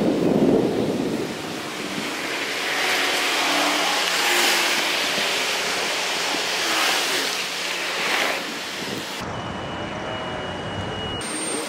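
Street traffic and wind noise heard from a moving bicycle, with passing vehicles swelling and fading away twice.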